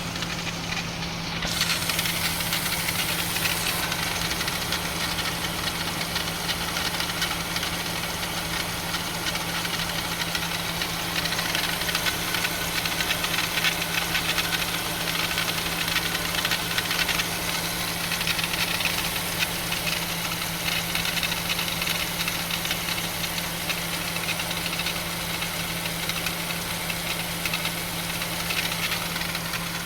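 Chrysler 3.6 Pentastar V6 idling, heard at the belt-driven accessory pulleys, with a steady low hum and a fast, even ticking. The owner suspects a bad pulley, though the belt and pulleys look sound.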